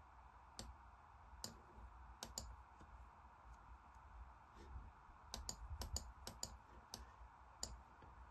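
Faint computer mouse clicks over a low steady hum: single clicks at first, then a quick run of about seven together a little past halfway.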